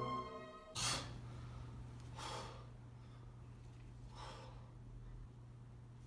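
Choir music fades out. About a second in comes a person's sharp breath, then two softer breaths about two seconds apart, over a faint steady hum.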